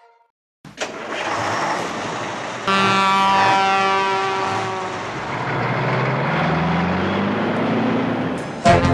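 Semi-truck's air horn, pulled by its overhead cord, sounding one long steady blast of about two and a half seconds over the running truck engine. The engine then rises slowly in pitch as the truck pulls away.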